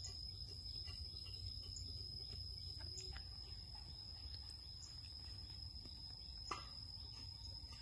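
Steady high-pitched insect drone over a low outdoor rumble, with a few faint clicks, the sharpest near the end.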